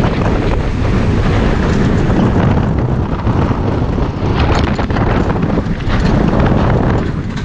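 Wind rushing over the microphone of an onboard camera on the Cheetah Hunt steel roller coaster, with the low rumble of the train running along the track. The noise stays loud and steady throughout.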